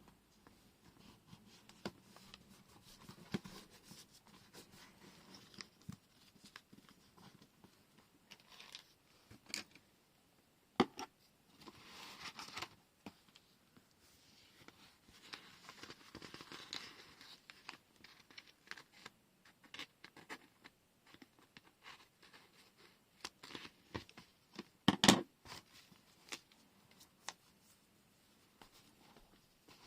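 Close-up crafting handling sounds of a washi tape set and paper: tape being peeled and torn, paper rustling, with scattered light taps and clicks and a louder clatter of knocks near the end.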